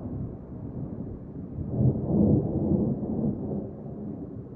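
Thunder rumbling, swelling to a louder roll about two seconds in and then easing off.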